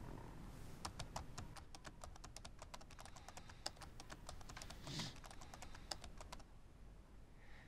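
Typing on a computer keyboard: a run of quick, uneven keystrokes that stops a little after six seconds in.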